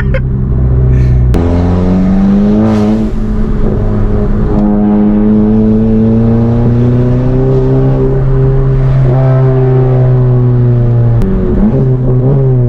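Modified Mk7 Volkswagen GTI's turbocharged four-cylinder, with an aftermarket catback exhaust and downpipe, pulling through the gears under acceleration. The engine note climbs in pitch, drops at gear changes about one and a half and four and a half seconds in, rises slowly for several seconds, and drops again at another shift near the end.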